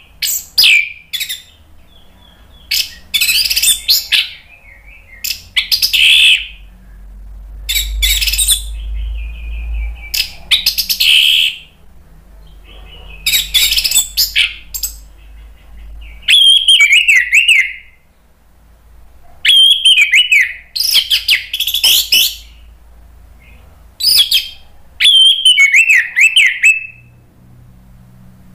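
Orange-headed thrush singing loudly in short bursts of about a dozen phrases, each a second or two long with brief pauses between, mixing harsh chattering notes with high falling whistled trills.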